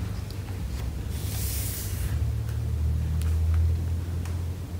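Steady low room rumble, with a soft paper rustle about a second in as a hardcover picture book's page is turned, and a few faint handling clicks.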